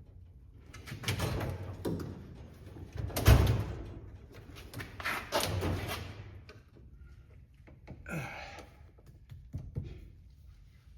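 Hand tools working a threaded bushing press tool on a steering rack: a series of metal knocks and clunks, the loudest a heavy thud about three seconds in, with small clicks between and a short rasping sound near eight seconds.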